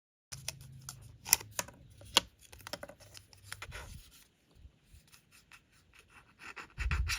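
Small plastic pieces and packaging handled on a work surface: a quick run of light clicks, taps and scraping, thinning out after about four seconds, with a louder rustle near the end.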